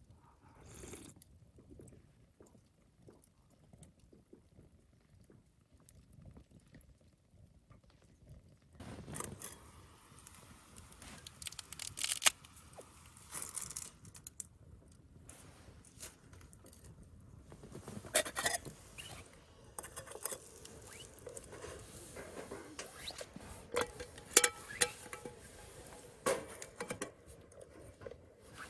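Wood fire crackling in a small folding camp stove. It is faint for the first several seconds and fuller from about nine seconds in, with scattered sharp knocks and clinks as the metal pot and pan are handled on the stove's grate.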